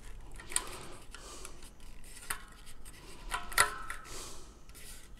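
Handling noise from an air fryer basket and its handle assembly being turned over by hand: a few light clicks and knocks of the parts, the loudest about three and a half seconds in, with quiet rubbing between.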